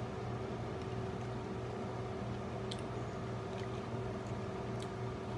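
Steady low mechanical hum of a running room appliance, with two faint clicks, about three seconds and five seconds in.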